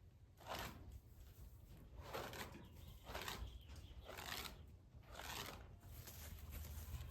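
Faint, repeated scraping or rustling strokes, about one a second.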